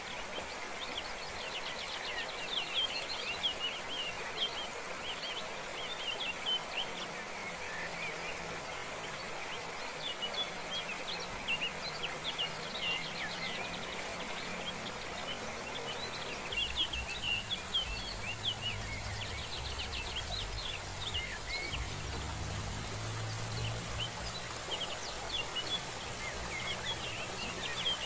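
Steady rush of a forest waterfall, with small birds chirping in quick high-pitched bursts that come and go. About two-thirds of the way in, a low hum and rumble joins underneath.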